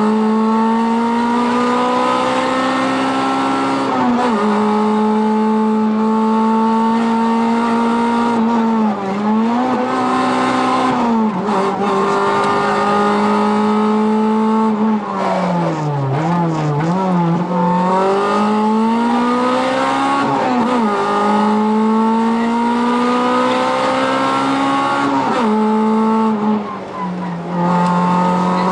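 Rally car engine heard from inside the cockpit at speed, held high in the revs and climbing slowly, with several sudden drops and pick-ups as the driver lifts and changes gear. About halfway through the revs dip and waver for a couple of seconds before climbing again.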